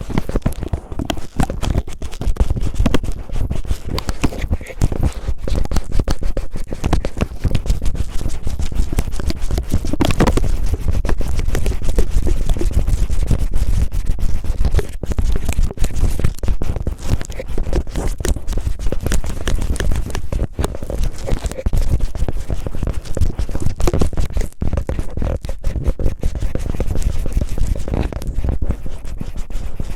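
Cellophane rubbed and crinkled roughly against a microphone as ASMR ear-cleaning sounds: dense crackling scratches over a heavy low rumble.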